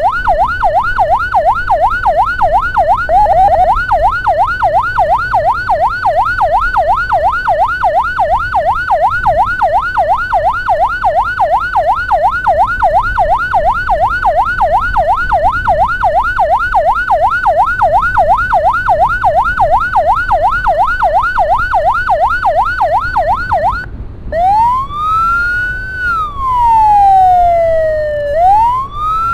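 Ambulance electronic siren on a fast yelp, sweeping up and down about three times a second. Near the end it switches to a slow wail rising and falling every two to three seconds. A low rumble runs underneath.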